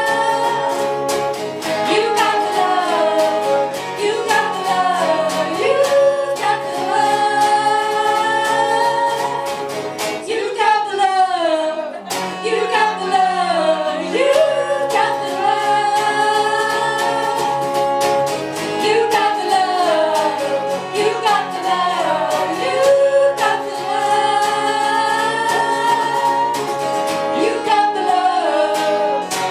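A small band playing live: an acoustic guitar strummed in an even rhythm, with electric guitar and bass, under several voices singing together.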